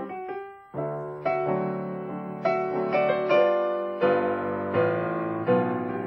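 Solo piano music played on a Bösendorfer grand. A few light, sparse notes give way, about a second in, to fuller chords with bass notes struck in a steady rhythm.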